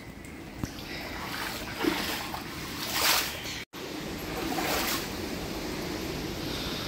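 Hurricane wind and rain: a steady rushing noise that swells louder in several gusts and briefly cuts out partway through.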